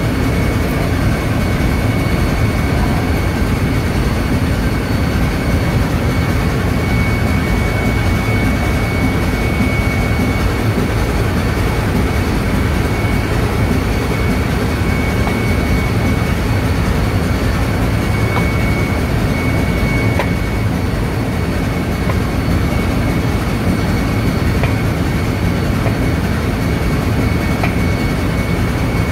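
Ship's engine-room machinery running: a loud, steady low rumble with a constant high whine over it.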